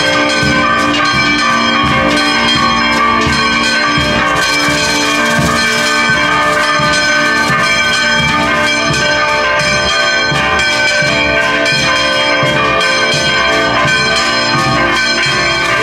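Church bells ringing a fast, continuous peal, many bell tones struck over and over with no pause.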